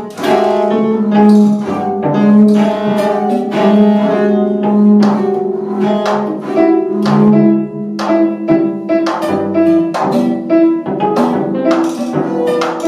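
Bowed cello and double bass holding long, overlapping notes, with frequent, irregular sharp hits on a prepared snare drum.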